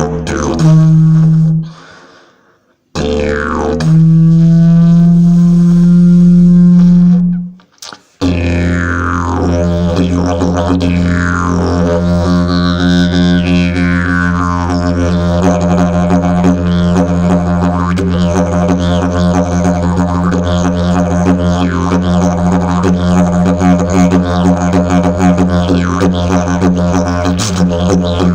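Fiberglass slide didgeridoo: a short and then a longer loud, higher held note with brief pauses between. From about eight seconds in, a steady low drone held without a break, its overtones sweeping up and down in a rhythmic pattern.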